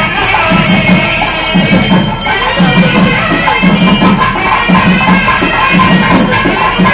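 Loud festival percussion: a drum beats about once a second under fast, steady metallic clashing, with a crowd talking underneath.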